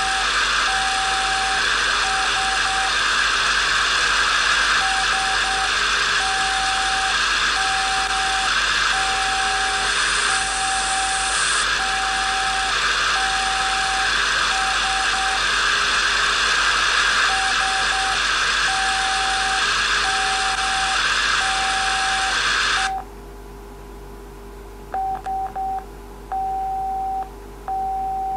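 Morse code beeping: a single steady tone keyed in dots and dashes over a loud static hiss. The hiss cuts off suddenly about 23 seconds in, leaving the beeps alone.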